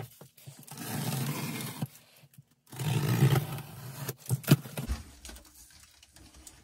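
A taped cardboard shipping box being opened: two stretches of tearing, scraping noise from the tape and flaps, then a few sharp cardboard knocks about four seconds in.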